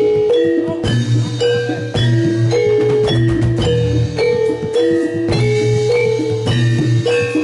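Javanese jathilan gamelan music played loud through a sound system: a quick run of struck metal-keyed notes over drumming.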